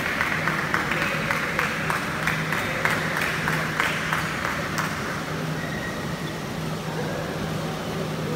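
Spectators clapping after a point in a badminton match, the clapping thinning out and dying away about five seconds in, over a steady low hum.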